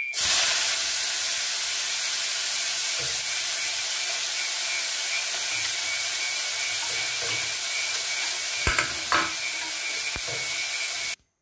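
Sliced onions dropped into hot oil in a kadai, sizzling loudly and steadily, with a few light knocks near the end. The sizzle cuts off suddenly just before the end.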